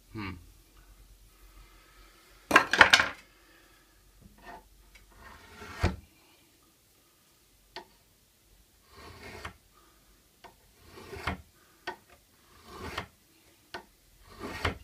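A steel chisel drawn along the edge of a clamped card scraper in about eight short, irregular metal-on-metal scraping strokes, the loudest about two and a half seconds in. This is burnishing to turn a burr on the scraper's edge.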